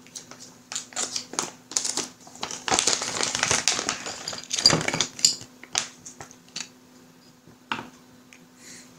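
Plastic bag crinkling as it is opened and rummaged through, densest about three to five seconds in, followed by scattered light clicks and taps.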